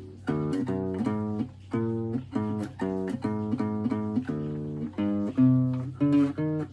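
Guitar being strummed, chord after chord, with a new chord struck about every half second.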